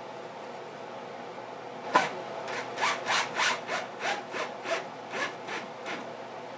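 Hand-shaping of a cherry guitar body: a single knock, then a run of short rubbing strokes of an abrasive tool on the wood, about three a second.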